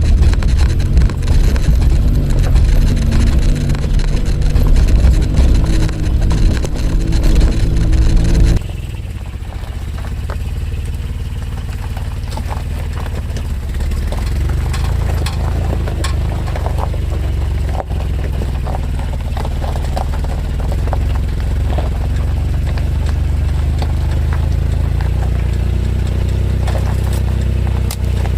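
Suzuki Jimny on the move: steady low engine and road rumble. It drops abruptly to a quieter, steadier rumble about a third of the way in, with faint clicks and rattles over it.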